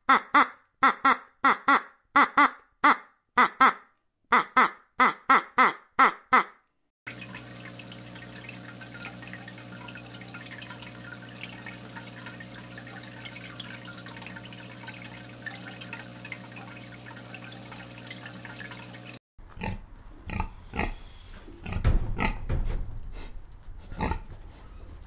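White domestic ducks quacking in rapid strings of short calls for the first several seconds. Then trickling water over a steady low hum. About two-thirds of the way through, pigs start grunting in short, loud, low grunts.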